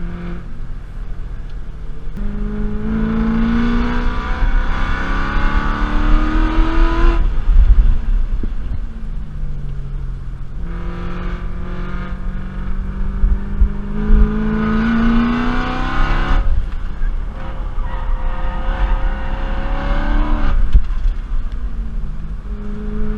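BMW E92 M3's V8 engine under hard acceleration, its note climbing steadily through the revs. This happens three times, and each pull ends in a sudden drop in pitch, as at an upshift or a lift off the throttle.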